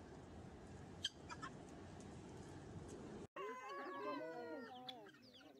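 Young farm birds peeping. A couple of short chirps sound over a steady low rumble, then after an abrupt cut comes a busy flurry of peeps that glide up and down.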